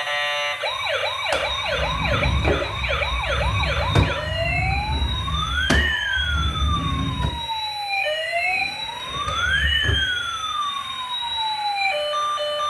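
Toy emergency vehicle's electronic siren: a fast yelp, about two to three sweeps a second, for the first few seconds, then a slow wail that rises and falls twice, with a few sharp clicks. Near the end it gives way to a beeping electronic tune.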